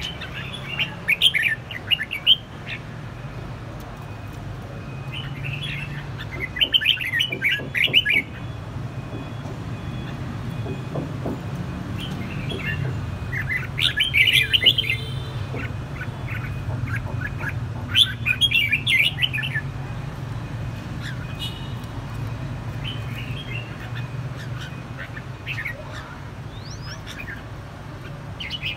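Caged red-whiskered bulbuls singing in short bursts of chattering song every few seconds, over a steady low hum. The birds are counter-singing as a territorial song duel between a wild-caught bird and a home-kept one.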